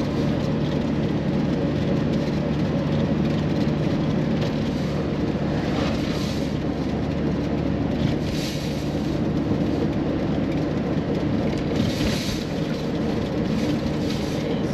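Steady road and engine noise inside a moving car's cabin, cruising at about 90 km/h, with a few brief louder hisses about six, eight and twelve seconds in.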